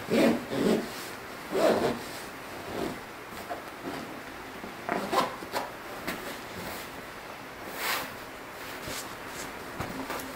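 Quilted fabric sofa cushion cover rustling and rubbing as it is pulled and worked onto a cushion, in irregular bursts, the loudest in the first two seconds.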